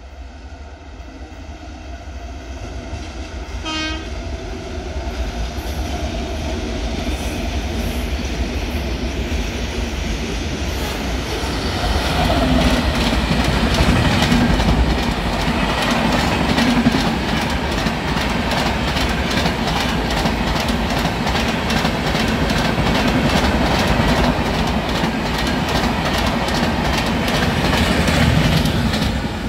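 Indian Railways express train approaching and passing at speed. A short horn blast comes about four seconds in. The sound then swells into a loud, steady rush, with the wheels clattering rhythmically over the rail joints as the coaches go by.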